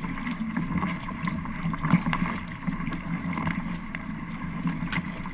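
Water splashing and slapping against the bow of a racing paddle craft moving through choppy sea, with wind on the microphone and scattered sharp splashes.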